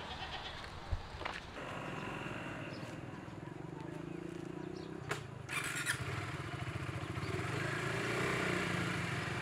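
KTM RC sport motorcycle's single-cylinder engine running steadily at idle, with a sharp click about a second in and another about five seconds in; the engine gets a little louder near the end.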